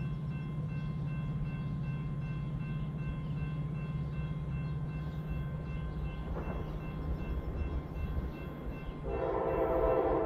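Approaching Norfolk Southern diesel freight train: a steady low rumble, then about nine seconds in the locomotive's air horn blows loudly, a chord of several tones.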